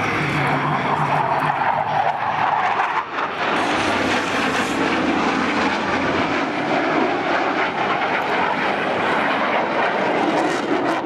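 F/A-18 Hornet's twin jet engines during a demonstration pass: a loud, steady rush of jet noise with a brief dip about three seconds in.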